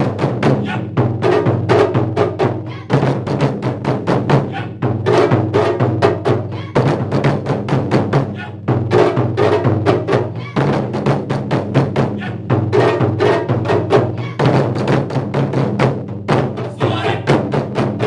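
A taiko ensemble of four nagado-daiko barrel drums struck with wooden bachi sticks, playing a fast, driving rhythm of many strokes a second. The run is broken by short dips every couple of seconds.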